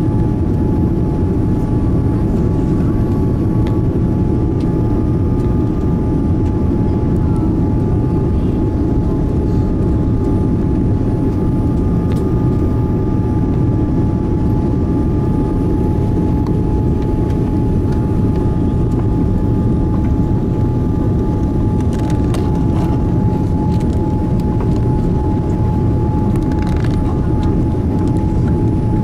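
Boeing 787 Dreamliner cabin noise: a steady low rumble of engines and airflow with a steady high whine running through it. A few faint clicks come late on.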